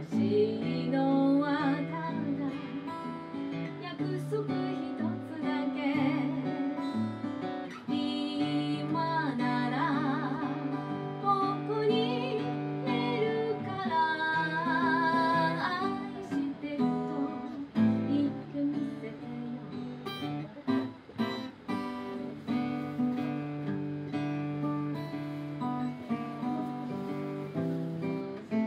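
A woman singing to her own strummed acoustic guitar. About halfway through the voice stops and the guitar carries on alone with chord strums.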